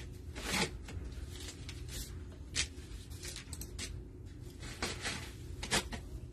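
Scattered soft clicks and rustles of something being handled, a few each second at irregular times, over a steady low room hum.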